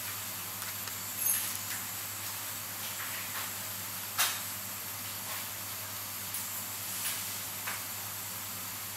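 Light, sharp clicks and taps of watchmaker's tweezers and a fine screwdriver working on a Seiko 7S26B watch movement during reassembly, a handful in all, the sharpest about four seconds in, over a steady hiss.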